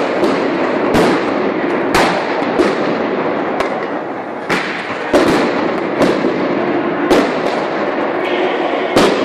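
A dozen or so sharp explosive bangs, roughly one a second and irregular, over the steady din of a large crowd.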